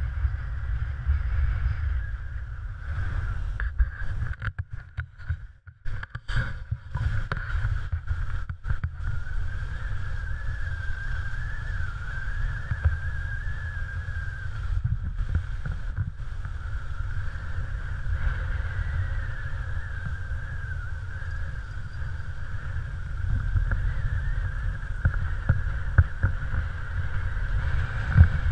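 Steady wind rumble on a GoPro Hero3 camera while skiing, with a hiss of skis sliding over snow. The sound drops out briefly several times between about four and nine seconds in.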